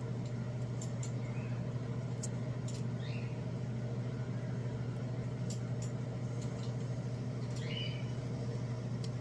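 A steady low hum, like a running appliance or fan, with a few faint light clicks and brief soft rustles over it.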